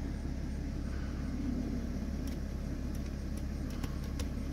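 Motorhome engine idling steadily, a low even rumble heard from inside the coach, with a few faint clicks in the second half.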